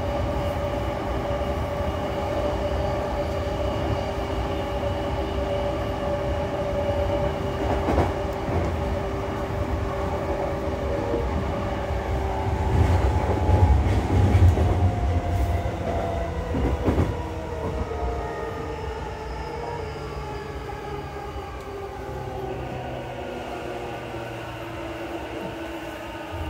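Inside an E233-0 series electric train car: the Mitsubishi IGBT-VVVF inverter and traction motors whine over wheel-on-rail rumble. About halfway through the rumble grows louder and the whine falls in pitch, then everything quietens as the train slows on its approach into the station.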